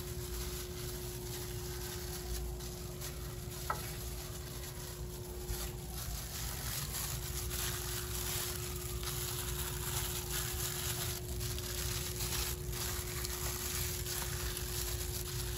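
Gloved hands turning raw, oiled chicken drumsticks in a glass baking dish, with a few light clicks, over a steady hiss and a low, even hum.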